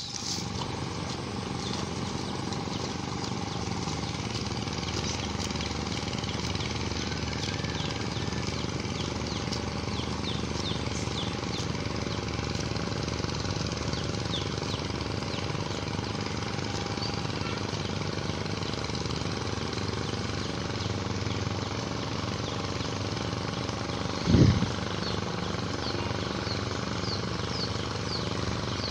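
A steady motor drone with faint high chirps over it, and one short loud low sound about 24 seconds in.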